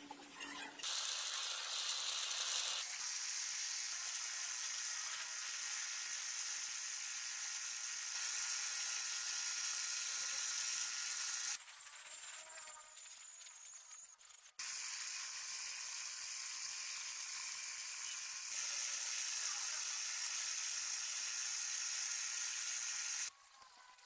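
Steady hiss of a compressed-air or aerosol spray, running in two long stretches with a quieter break of about three seconds between them.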